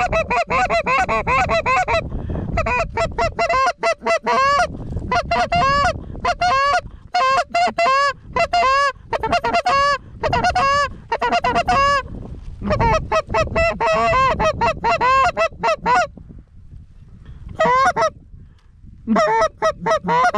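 Canada goose honks and clucks in fast, loud runs of several calls a second, broken by short pauses, over a low wind rumble.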